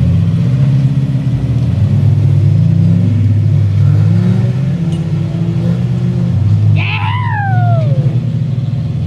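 Off-road vehicle's engine running loud on a hill climb, its pitch rising and falling as it revs. About seven seconds in, a short high sound glides sharply downward over it.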